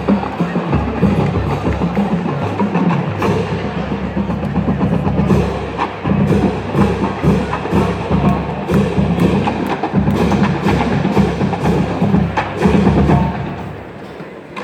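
Marching band playing, with sharp clicking drumline strokes and drums over steady low sustained notes; the music fades out about a second before the end.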